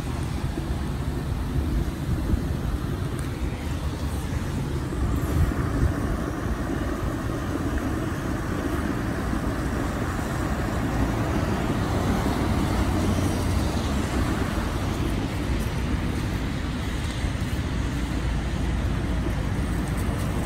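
Steady low rumble of a vehicle on the road: continuous road and engine noise with no distinct events.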